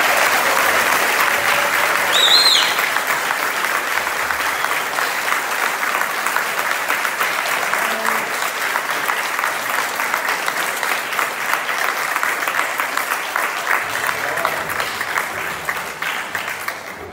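Audience applauding steadily in a large hall, with a short high-pitched call rising over the clapping about two seconds in; the applause tapers off near the end.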